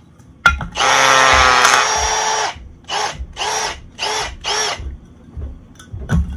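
Milwaukee hammer drill driver with a cone-shaped kindling-cracker bit run into a piece of split firewood. It starts sharply about half a second in, runs steadily for about two seconds as it splits off a piece, then gives four short bursts with the motor spinning up and down each time.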